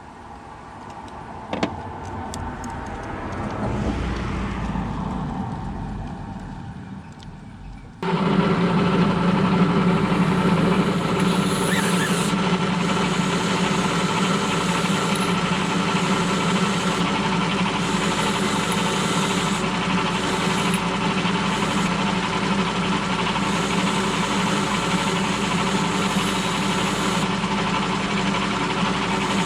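A motor-driven wire wheel starts suddenly about eight seconds in and runs steadily, wire-brushing the bolts clean, with a strong even hum. Before it starts there are only faint handling noises and a click.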